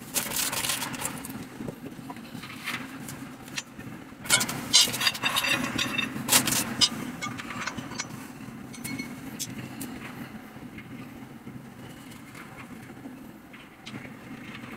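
Metal flat-pack furniture parts clattering and knocking as a white metal-mesh frame is handled and its rails fitted together, with the loudest cluster of sharp knocks from about four to seven seconds in. A steady low hum runs underneath.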